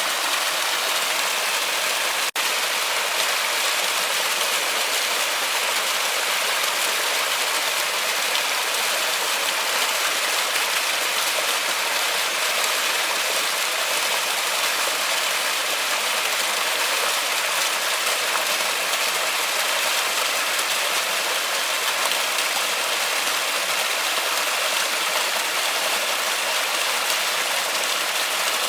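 Steady rushing hiss of a forest waterfall, bright and even with little low rumble, broken by a momentary dropout about two seconds in.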